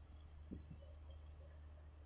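Near silence: a low steady hum, with two faint soft thumps about half a second in.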